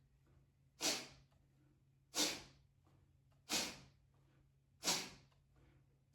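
Qigong fire breathing: four sharp, forceful exhales blown out through the nose, about one every 1.3 seconds, each a short burst of air that dies away quickly. The hands pump the belly like a bellows to force the air out of the nose.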